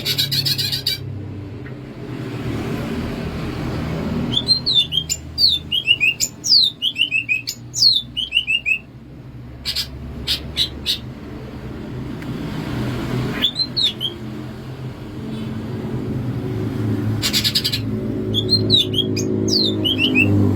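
Cucak ijo (green leafbird) singing: runs of quick, loud, descending whistled notes in bursts a few seconds apart, mixed with short harsh rattling buzzes. Low background music plays underneath.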